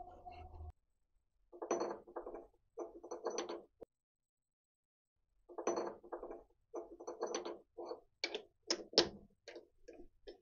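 A Myford Super 7 lathe's running hum cuts off within the first second. Then come short runs of metallic clicks and clanks from a chuck key turning the jaw screws of a four-jaw chuck, with a few sharper clinks near the end as the jaws are set on the workpiece.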